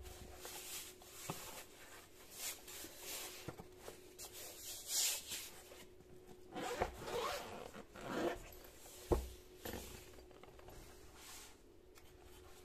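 Zipper on a fabric tool case being pulled open around its edge in a series of scratchy strokes, with a single sharp thump about nine seconds in.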